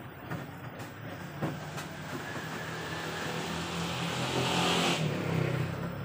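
LG front-loading washing machine running with its drum turning the wet laundry: a steady low motor hum under a swishing wash that grows steadily louder, with a few light knocks in the first two seconds.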